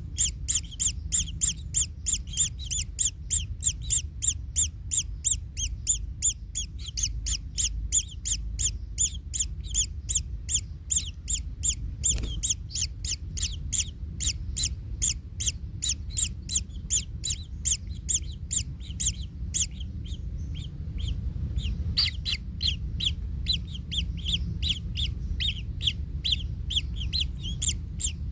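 Kingfisher nestlings calling from the nest: a rapid, unbroken series of high chirps, about three to four a second, over a steady low rumble.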